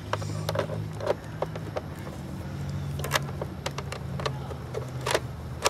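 Scattered clicks and small knocks of hands handling the speedometer cable and threading its metal end fitting onto the back of the scooter's instrument cluster, over a steady low hum.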